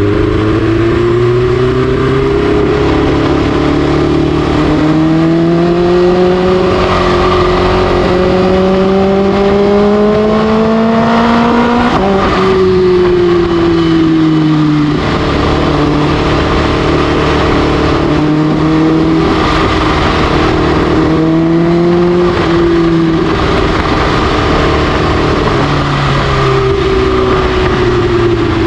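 Kawasaki H2's supercharged inline-four through an SC Project exhaust, ridden under throttle: the engine note climbs slowly for about twelve seconds, drops sharply, then rises and falls again and starts climbing near the end.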